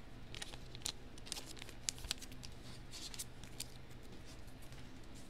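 Trading cards being handled and slid into plastic sleeves: a run of light, crinkly rustles and soft ticks from the plastic and card stock, over a low steady hum.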